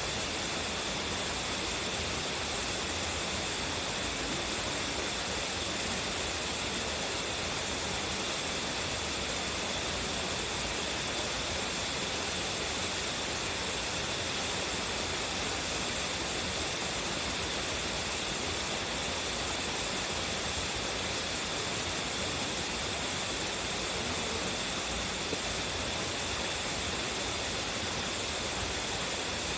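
Waterfall with a strong flow, its water crashing down in a steady, unbroken rush.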